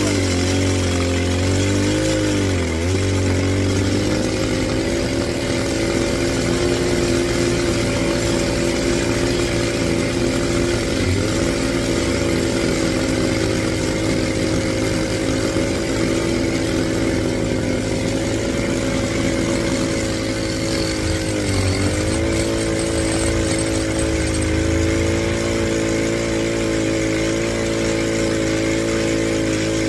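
Engine-driven rock drill running steadily through rock, its engine note sagging briefly three times as the bit loads up, then recovering.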